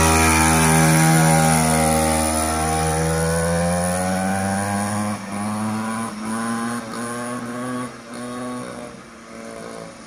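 Mini dirt bike's small two-stroke engine pulling away. Its pitch rises over the first few seconds, then it grows fainter as the bike moves off, with the throttle easing off briefly several times.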